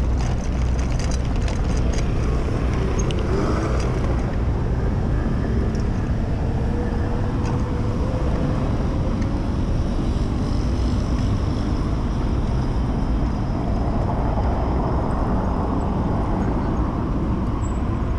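Steady rumble of wind on a handlebar-mounted camera microphone while cycling, mixed with road traffic from cars in the neighbouring lanes.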